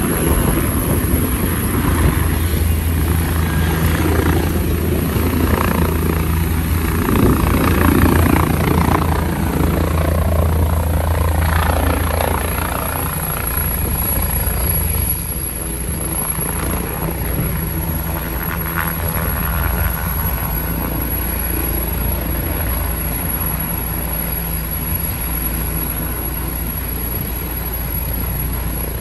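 Air ambulance helicopter hovering low and climbing away, its rotors and engines running loud and steady with a strong low rotor hum. The sound eases a little about halfway through.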